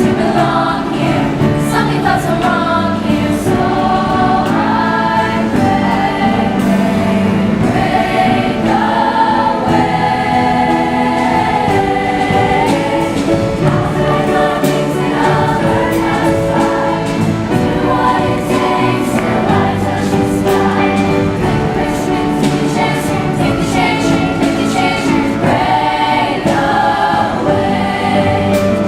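A choir singing a song in full voice, many voices together.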